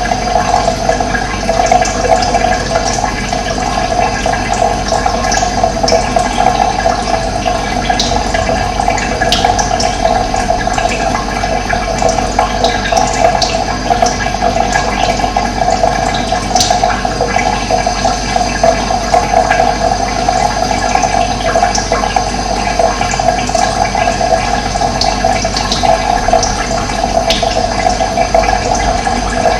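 Steady rushing of running water, with brief high bird chirps now and then.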